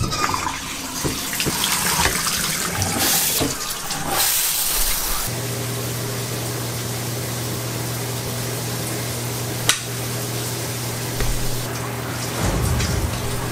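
A bathtub shower turned on at its mixing valve, water running and splashing steadily into the tub. A steady low hum joins about five seconds in.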